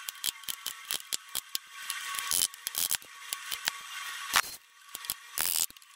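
Rapid, irregular sharp clicks, about six a second, from a dent-puller stud welder (spotter) gun worked against the bare steel of a repaired door sill. A few short, louder bursts come around the middle and near the end.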